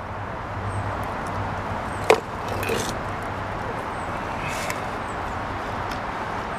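A loose flat stone knocking and scraping against the stones of a dry-laid or mortared stone wall as it is worked out by hand. There is one sharp knock about two seconds in, then a couple of fainter scrapes, over steady background noise.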